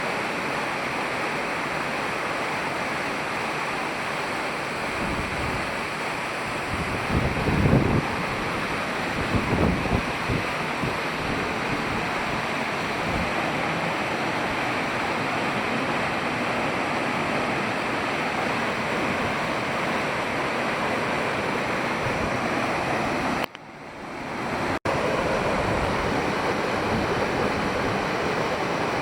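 Waterfall rushing steadily, a constant wash of falling water. There are a few brief low gusts of wind on the microphone about a third of the way in, and the sound drops out for about a second near the end before the same rush resumes.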